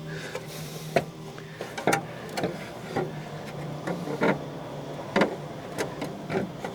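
Irregular knocks and clunks, about a dozen spread over several seconds, as a heavy radiator is worked into place in a truck's frame, over a steady low hum.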